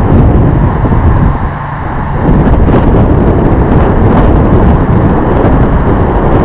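Wind buffeting the camera microphone: a loud, continuous low rumble.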